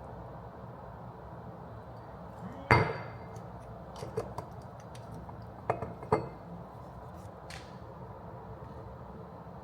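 Glassware clinking: one sharp, ringing clink about three seconds in, then a few lighter clinks and taps a second or so later.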